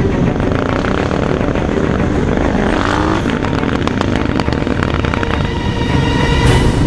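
Motorcycle engines running as a large pack of bikes rides down a street, heard from a moving motorcycle with steady wind rumble. About five and a half seconds in, a steady pitched tone with several overtones joins over the engines.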